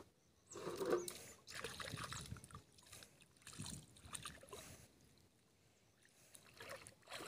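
Shallow muddy water splashing and sloshing in short, irregular bursts as a person wades through it and handles things in the water.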